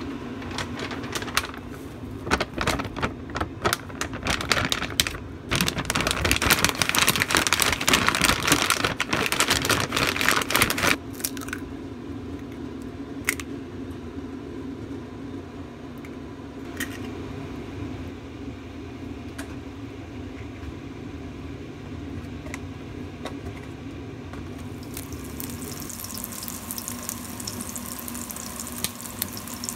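A utensil scraping and clattering against a stainless-steel bowl as zucchini strips are tossed with flour: dense, loud for about the first ten seconds, then quieter with a few sharp clicks. Near the end, zucchini-pancake batter starts sizzling in a hot frying pan.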